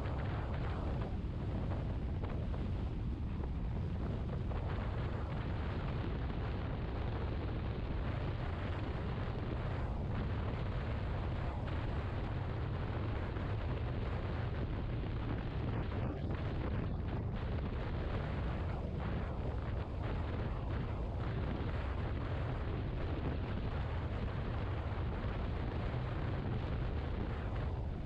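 Steady low wind rumble buffeting the microphone of a camera on a motor scooter moving at road speed, with road and engine noise beneath.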